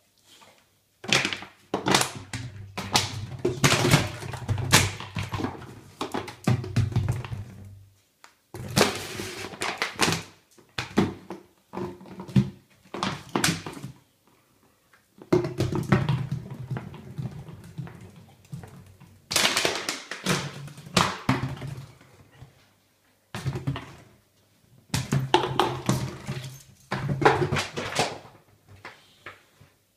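A dog chewing and mouthing an empty plastic drinks bottle, the plastic crackling and crunching with knocks as it hits the tiled floor, in bursts of several seconds with short pauses between.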